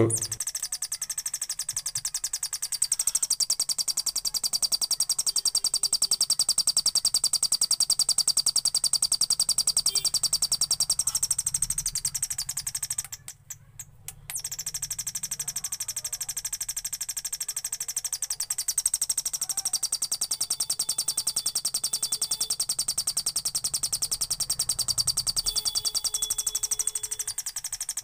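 Homemade two-transistor (BC547/BC557) bird-sound oscillator chirping through a loudspeaker: a fast, continuous run of high, electronic bird-like chirps. It cuts out for about a second halfway through, starts again, and stops near the end.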